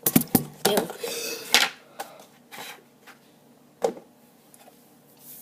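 Spoon knocking and scraping against a cup of thick, chunky milkshake: a quick run of clatters in the first second and a half, then one sharp knock about four seconds in.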